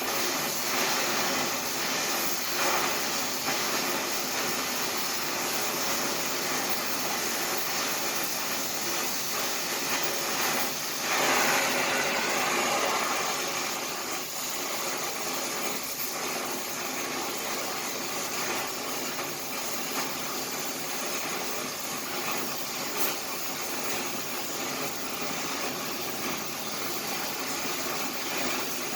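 Welding arc crackling and hissing steadily, louder for about three seconds around the middle.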